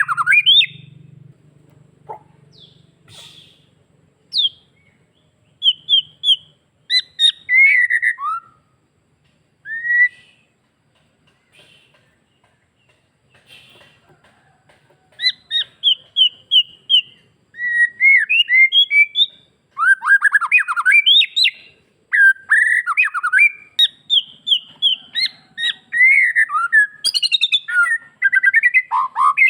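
White-rumped shama (murai batu) singing in varied phrases of sharp whistled notes, slurred chirps and quick runs of repeated notes. The song comes in scattered phrases with a quiet spell around the middle, then runs almost without a break through the second half.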